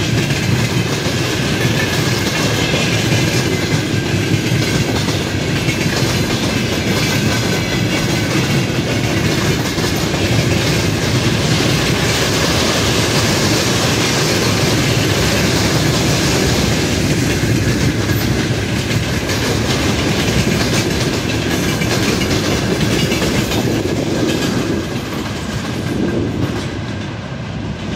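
Freight train wagons (container flats, hoppers and covered wagons) rolling past, their wheels clattering over the rail joints in a steady, loud rumble that eases off a little near the end as the last wagons pull away.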